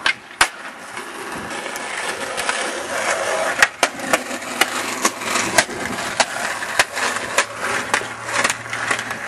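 Skateboard wheels rolling on pavement, the rolling sound growing louder over the first few seconds, with a string of sharp clacks and knocks from the board.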